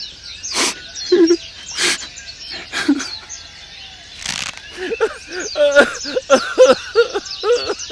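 Small birds chirping continuously as outdoor ambience, broken by three sharp strokes in the first half. In the second half comes a quick run of short calls that bend up and down in pitch.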